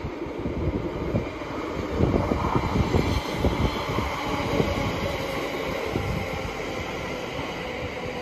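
Electric passenger train moving at the platform: a steady rumble of wheels on the rails that grows louder about two seconds in.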